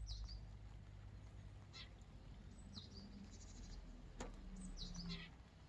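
Faint birds chirping, a few short high calls, over a low steady hum, with a single sharp click about four seconds in.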